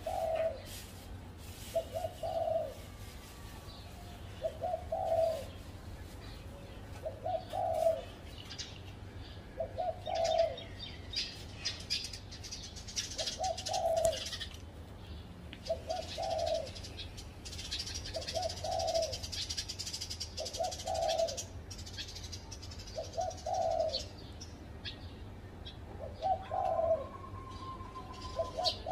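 Spotted dove cooing: a short, low, multi-note phrase repeated about every two and a half seconds. Other small birds chirp faintly in the background, mostly through the middle.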